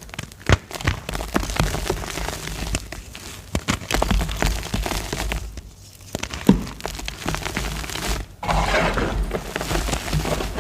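Gym chalk being crushed and crumbled: dense crunching and cracking, a brief lull a little past the middle, then a sharp crack and a thicker rush of crumbling near the end.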